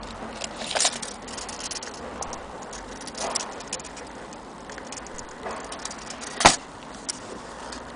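Small hard objects being handled: irregular light clicks and taps, with one sharper click about six and a half seconds in.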